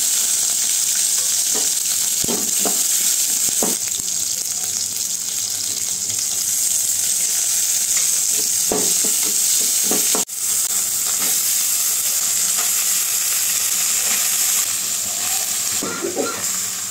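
Sliced shallots and green chillies sizzling steadily in hot oil in an aluminium pot, stirred now and then with a metal ladle that scrapes against the pot. The sizzle drops away near the end as cooked rice goes in on top.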